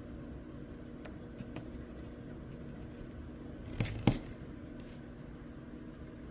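A coin scratching the coating off a scratch-off lottery ticket: a few light scrapes and ticks, then two quick, louder strokes about four seconds in.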